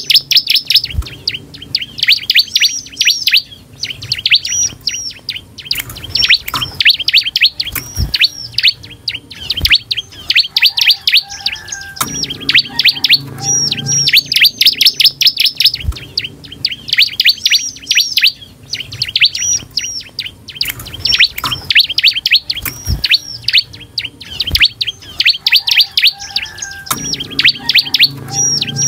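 Bar-winged prinia (ciblek) singing hard: bursts of rapid, high chirping notes, each burst a second or two long and repeated every couple of seconds.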